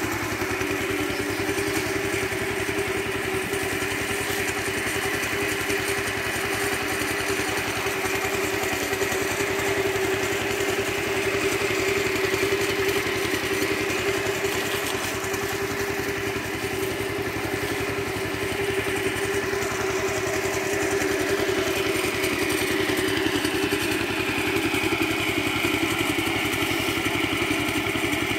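Small engine-driven irrigation water pump running at a steady speed, drawing water through the hose.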